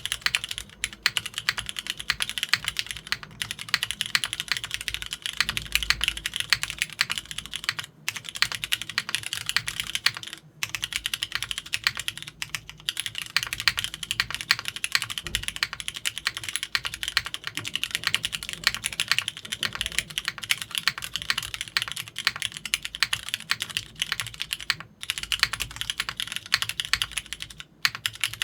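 Continuous typing on a TGR Jane V2 CE mechanical keyboard: lubed, filmed, spring-swapped vintage Cherry MX Black linear switches on a polypropylene plate with GMK keycaps and no sound dampening. A dense, quick stream of keystrokes, broken by a few brief pauses.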